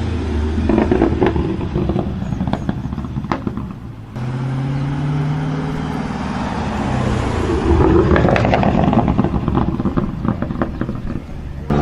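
Tuned car engines held high on a two-step limiter or anti-lag, the exhaust popping and crackling in rapid cracks. About four seconds in a different engine takes over with a steadier held rev, then breaks into crackling again.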